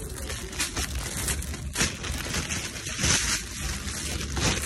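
Rustling and crinkling noise from a hand-held phone being moved and rubbed, with scattered clicks and a low rumble.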